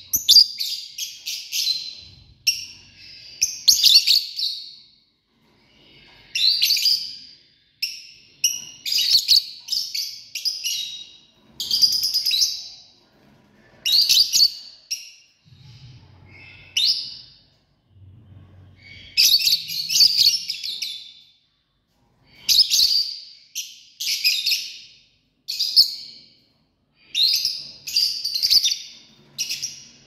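Lovebirds giving shrill, high-pitched chirps in short bursts, one bout after another about every second or two with brief pauses between.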